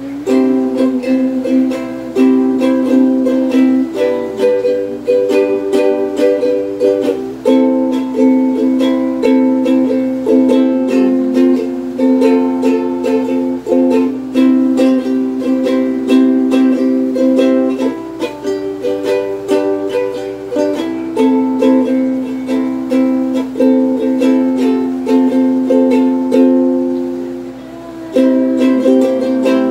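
Muslady 21-inch soprano ukulele with a mahogany body, freshly tuned, being strummed in chords that change every second or two. The strumming pauses briefly near the end.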